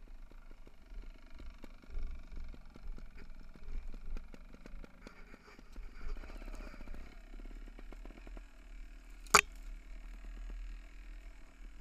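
Mountain bike rattling and clattering over a rough forest trail, with a low rumble underneath. A run of rapid, even ticking comes around the middle, and one sharp, loud knock about nine seconds in.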